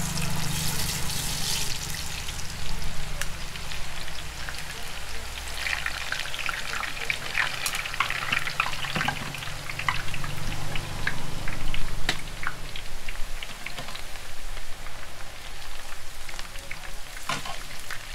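Besan sev frying in hot oil in a large iron kadhai, a dense sizzle with many small crackles. The crackling grows busier about six seconds in and thins out again after about thirteen seconds.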